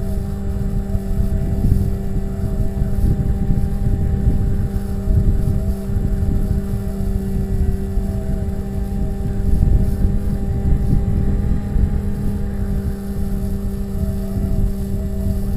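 Bixler RC glider's electric pusher motor and propeller running with a steady whine, heard from a camera taped into the canopy, over heavy wind buffeting on the microphone in flight.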